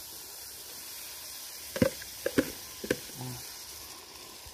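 Onions and carrots frying in oil in a kazan, a steady sizzle. A few sharp knocks against the pot come about two to three seconds in.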